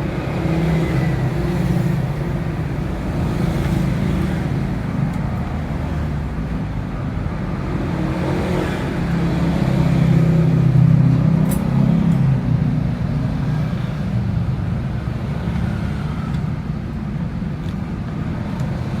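Steady rumble of road traffic going by, swelling for a few seconds around the middle, with a light click in the foreground.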